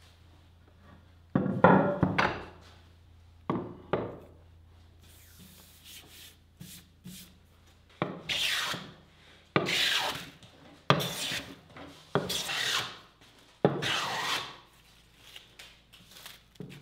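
Hand plane taking five long strokes along a wooden seat blank. Each stroke is a rasping hiss of about a second as a shaving comes off. Before them there is a loud clatter of wood on wood with knocks, the loudest sound, then two sharp wooden knocks.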